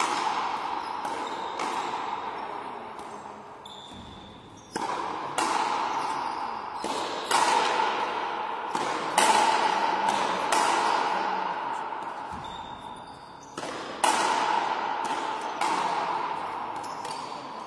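Frontenis rally: the rubber ball is struck by strung racquets and smacks off the front wall and floor. Each hit is a sharp ping with a ringing tone that echoes around the court. The hits come about once or twice a second, with a brief lull a little past two thirds of the way through.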